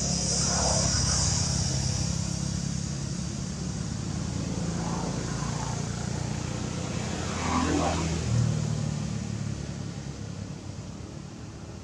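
A motor vehicle engine running nearby, a steady low hum that swells about eight seconds in and then fades away toward the end.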